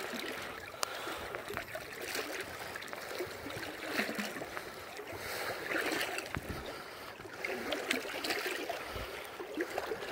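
Kenai River water running and splashing, with a few scattered short knocks.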